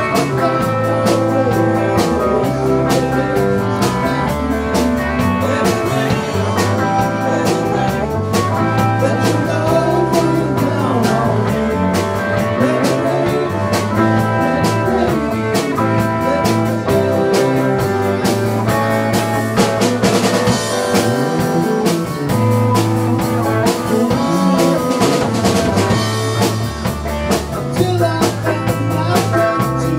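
Live blues-rock band playing: electric guitar over congas, continuous and steady in loudness.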